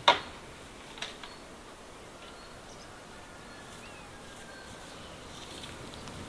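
Rural outdoor ambience with faint birdsong, broken just after the start by one sharp, loud tick, with two smaller ticks about a second in.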